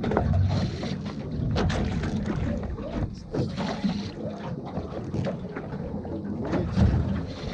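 Small boat on the open sea: steady water and hull noise with wind on the microphone, broken by scattered knocks.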